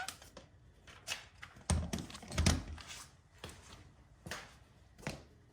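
Handling noises while working: scattered clicks and knocks, with two heavier thumps about two seconds in.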